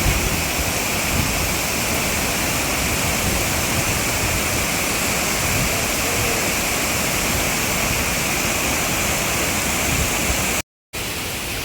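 Steady rushing of a waterfall and river in full flow. It cuts out for a moment near the end and then resumes a little thinner.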